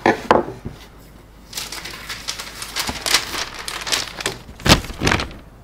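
Tracing paper and green tape being peeled off a piece of leather and lifted away: a run of irregular paper crinkles and rustles, with a couple of louder crackles near the end.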